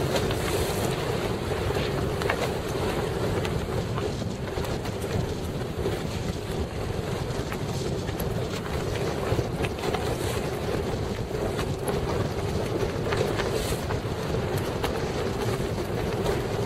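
A small motorboat's engine running steadily under way on choppy water, with wind buffeting the microphone and waves splashing against the hull.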